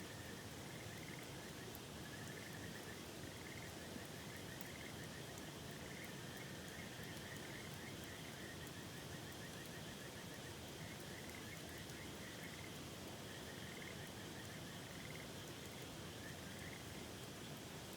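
Frogs calling in short pulsed trills, one bout after another, over the steady rush of a river, with a few faint ticks.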